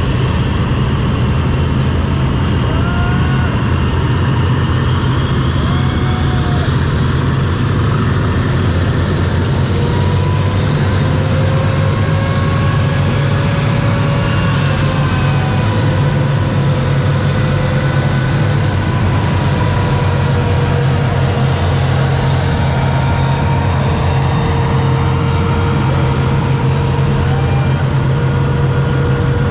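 Engines of a column of tracked armoured vehicles, K2 tanks and an armoured bridge-laying vehicle, running in a steady heavy rumble. Faint whines drift slowly up and down in pitch above it.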